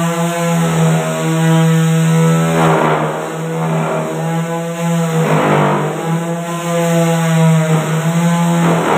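Handheld electric circular saw running steadily with a constant motor whine, cutting into the foot of a wooden door frame. Louder rasping surges come about three times in the middle and again at the end as the blade bites the wood.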